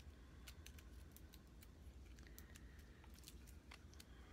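A string of faint, irregular small clicks and taps as a matte cream lipstick's tube and cap are handled and worked open, over a steady low hum.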